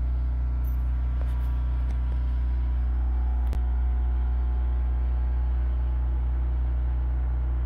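Steady low mechanical hum at an even level, with one faint click about three and a half seconds in.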